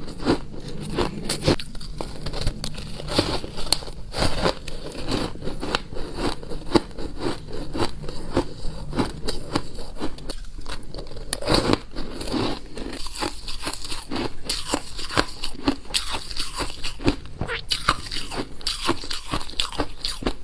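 Ice being bitten and chewed close to the microphone: a fast, unbroken run of crisp crunches.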